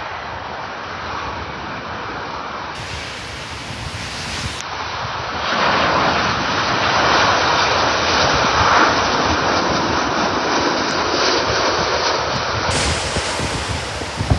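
Boeing 787 airliner passing low overhead on final approach: its jet engine noise swells about five seconds in, is loudest through the middle, then eases slightly as it passes, with wind buffeting the microphone throughout.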